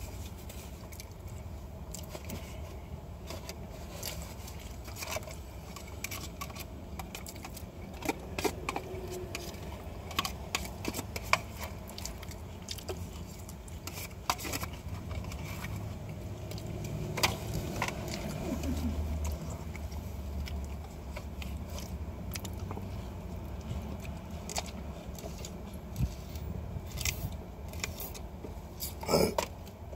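Eating sounds: chewing with scattered clicks, crinkles and scrapes of food packaging over a steady low hum, ending in a burp.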